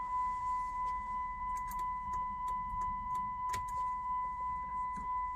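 A steady, high-pitched electronic beep tone, held without a break, with a few faint clicks over it; it cuts off suddenly.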